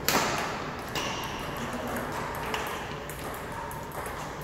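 Badminton rackets striking a shuttlecock during a doubles rally: a sharp, ringing hit right at the start, then a few lighter hits about a second or more apart.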